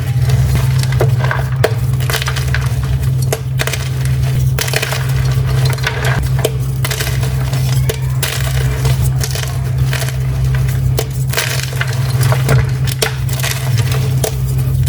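Dyed gym chalk being crushed, crunching and crumbling in a dense run of small cracks, over a steady low hum.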